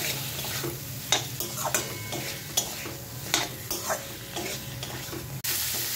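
A spatula scraping and stirring raw green banana and potato pieces through a spice paste in a kadai, in short, irregular strokes over a steady sizzle of frying oil, as the masala is sautéed in with the vegetables.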